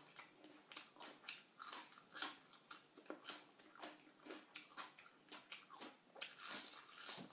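A person chewing and crunching food close to the microphone, with faint crisp crunches about two to three times a second.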